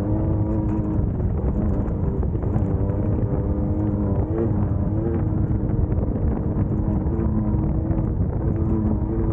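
Class 1600 off-road race car's air-cooled VW 1600 engine running hard at steady revs. Its pitch dips and recovers briefly about four seconds in. A constant low rumble and small knocks run beneath it.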